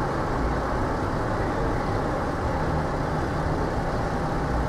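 City street traffic noise: a steady wash of passing cars and running engines, with a low engine hum coming in about halfway through.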